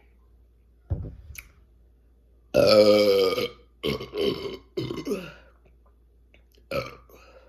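A woman burping repeatedly, brought on by chugging Coca-Cola: a short burp about a second in, then a long, loud, pitched burp, the loudest, followed by several shorter ones falling in pitch and a last brief one near the end.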